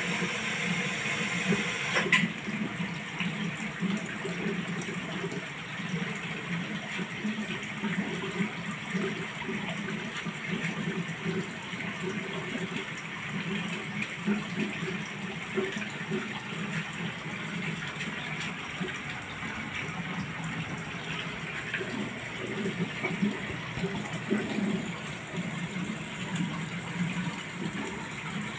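Aquarium water churning and bubbling steadily from the tank's circulation or aeration, with one sharp click about two seconds in.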